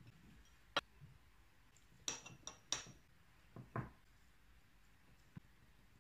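Several light clinks and taps on a glass jar as a hand drops sliced ingredients into it, the sharpest ones ringing briefly; the loudest three come close together about two seconds in.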